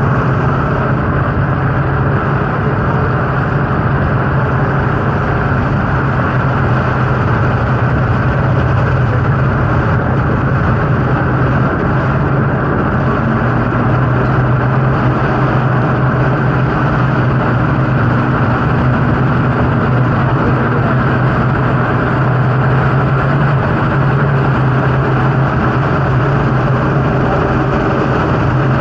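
Triple Yamaha outboard motors of a 600 hp speedboat running steadily at speed: a loud, unbroken engine drone with a strong low hum, mixed with the rush of the wake.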